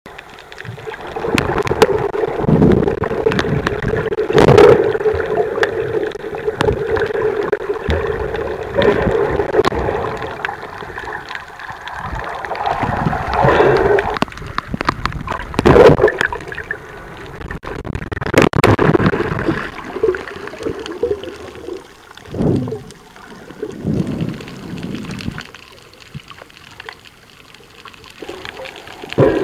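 Water gurgling and sloshing around a camera held underwater, swelling into louder surges every few seconds.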